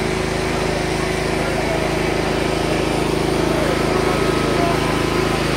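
An engine running steadily at one unchanging pitch, a constant hum over the general din of a crowded open-air market.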